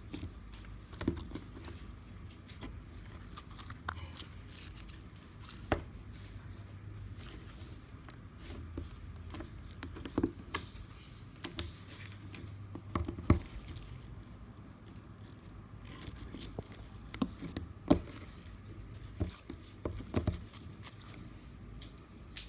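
Hands squeezing and stretching slime, making irregular wet pops and clicks, a few of them sharper than the rest.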